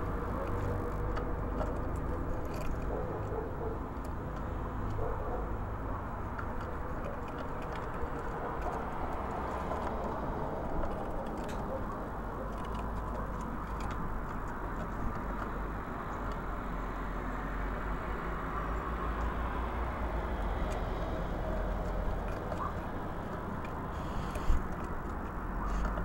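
Steady low hum of distant traffic, with a few faint light clicks and one sharper click near the end.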